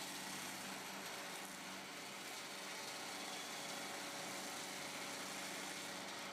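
Forestry harvester's engine running at a steady, even pitch with a continuous hum, heard at a moderate distance.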